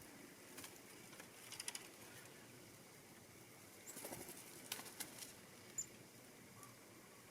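Black-capped chickadees coming to feed: faint scattered clicks and flutters, with clusters of sharp ticks about a second and a half in and again around four to five seconds, and a brief high chirp near six seconds.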